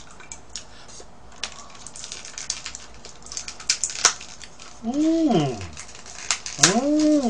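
Food packaging being handled: crinkling with many small clicks as a small lidded cup is opened and fiddled with. Near the end, two short voice sounds, each rising then falling in pitch.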